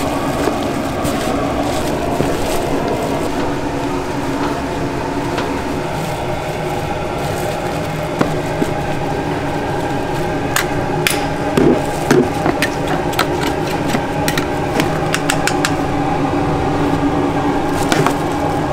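Street food stall work noise: a steady hum with several faint held tones throughout. A couple of dull knocks come near the middle, and a quick run of sharp clicks and taps follows in the second half.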